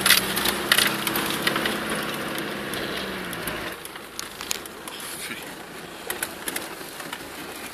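Land Rover Discovery Tdi's four-cylinder turbo-diesel running steadily under load, heard from inside the cab, with scattered knocks and rattles as the vehicle jolts over a rough dirt track. A little over halfway through the engine note drops away, leaving mostly the knocks and rattles.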